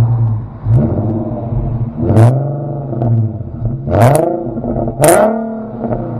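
Infiniti Q50's engine and upgraded aftermarket exhaust revving, the pitch climbing to a peak and dropping back three times.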